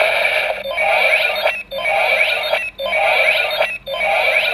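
DX Ixa Knuckle toy's speaker playing a looping electronic sound effect while its button is held down. The effect repeats about once a second with short breaks, and a quick rising whistle runs through each burst.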